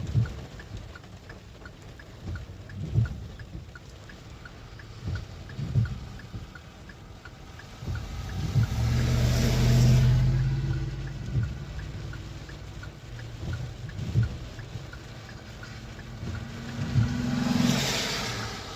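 Vehicles passing on the road, with engine noise swelling and fading twice, over low gusty thumps of wind on the microphone and a steady fast ticking.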